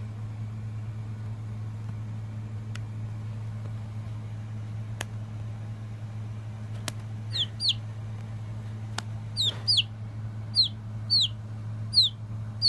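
A three-week-old Ideal 236 chick peeping: about eight short, high peeps that slide down in pitch, often in pairs, starting about seven seconds in. A steady low hum and a few faint clicks run underneath.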